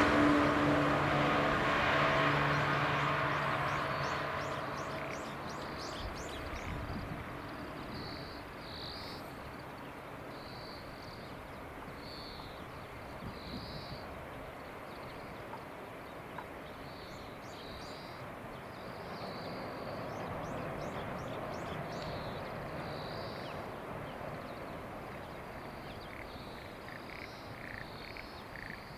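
JNR 115 series two-car electric train running away into the distance, its hum and rumble fading out over the first five or six seconds. After that, quiet countryside ambience with short high-pitched animal calls repeating about once a second.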